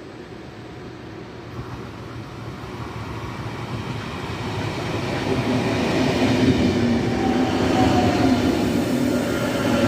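A train approaching and growing steadily louder, its rumble joined by steady tones from about five seconds in.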